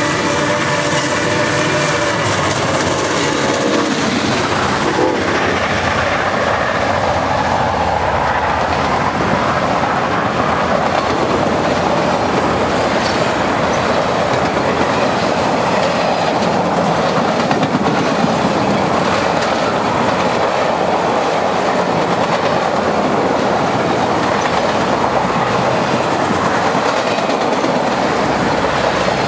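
Santa Fe 3751, a Baldwin 4-8-4 steam locomotive, blowing a chord on its steam whistle as it passes, the whistle ending about four seconds in. Then its train of passenger cars rolls by with a steady rumble and clatter of wheels on the rails.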